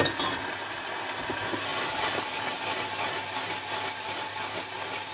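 Green peas sautéing in hot olive oil in a frying pan: a steady sizzle with a few faint ticks.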